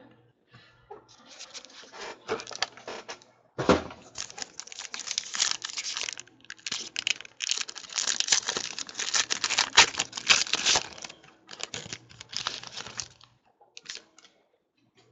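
Trading cards and a pack wrapper being handled: a dense run of crinkling, rustling and quick clicks as the pack is torn open and the cards are thumbed through. It dies down to a few faint clicks near the end.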